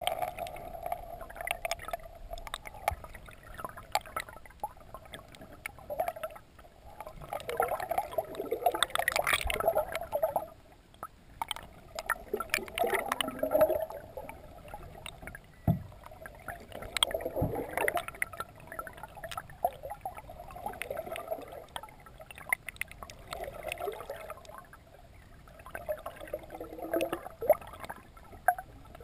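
Water gurgling and sloshing around a GoPro camera in its waterproof housing held under the surface, heard underwater. It swells in uneven surges every few seconds, with scattered clicks and knocks.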